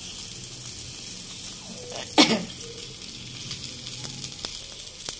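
Oil sizzling steadily with light crackles as food fries. There is one short, loud sound about two seconds in.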